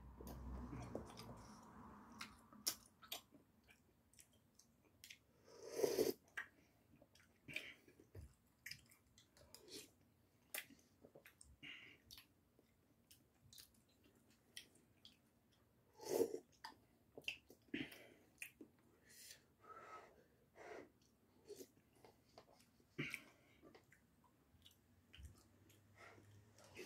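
Close-up eating sounds: broth from a cup of instant udon sipped off a spoon, with soft chewing and mouth clicks, and louder slurps about six seconds in and again about sixteen seconds in. The broth is hot, so it is taken in small sips.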